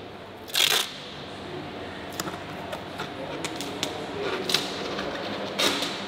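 Workshop handling noises: a short rustle about half a second in, then scattered light clicks and knocks, and another short rustle near the end.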